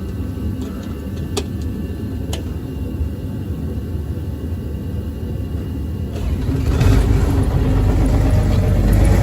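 A steady low rumble with a few clicks, then about six seconds in the New Holland skid steer's diesel engine starts and runs louder, now that its fuel filters have been changed to cure gelled fuel.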